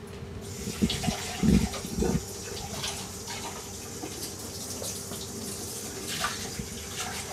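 Kitchen tap running steadily, water filling a blender jug to rinse it, with a couple of low knocks about a second and a half and two seconds in.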